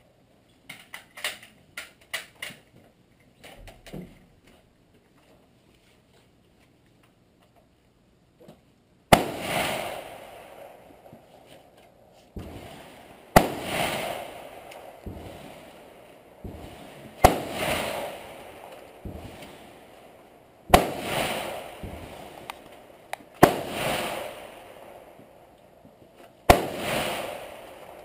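Rifle shots fired one at a time under a wooden-roofed firing line, each a sharp crack with a long echoing decay. A few light clicks come in the first seconds, then after a short quiet spell about seven shots follow, roughly three to four seconds apart.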